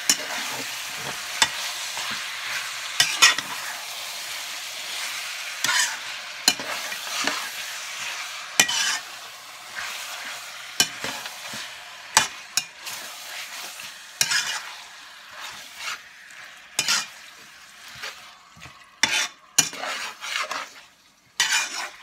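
Marinated duck pieces and onions sizzling in oil in a wide metal pan while a metal spatula stirs them, scraping and knocking against the pan every second or so: the meat being browned. The sizzle weakens over the second half, leaving mostly the spatula's scrapes and clicks.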